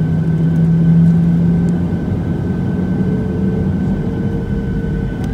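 Boeing 737-800's CFM56 turbofan engines heard from inside the cabin over the wing as the jet turns onto the runway for take-off: a steady drone with a high steady whine, its low hum stepping up in pitch about two seconds in.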